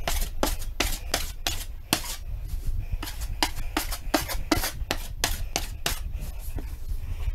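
A hand tool rubbed over a drywall ceiling patch in quick, short strokes, about three a second.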